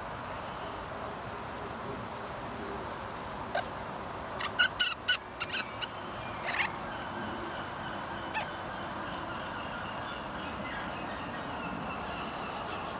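Ring-tailed lemurs squeaking during a fight: a quick run of about seven sharp, high squeaks starting about four seconds in, one longer squeak just after, and a single squeak a couple of seconds later.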